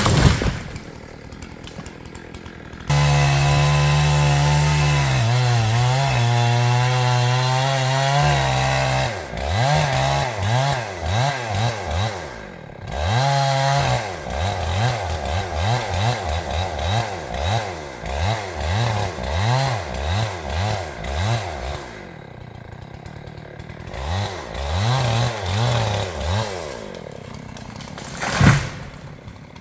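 Two-stroke chainsaw held at full throttle for several seconds, bucking felled poplar logs into lengths, its note sagging a little under load. The throttle is then blipped up and down about once a second for a long stretch before the saw drops back toward idle near the end.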